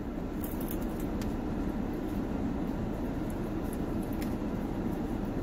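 Steady hum inside a parked car with its air conditioning running, with a few faint clicks from eating fried chicken.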